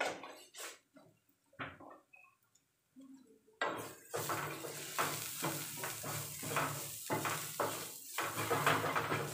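A few light taps, then from about four seconds in a wooden spatula stirring onions, chillies and spices in a non-stick frying pan: scraping strokes about twice a second over a steady sizzle of frying.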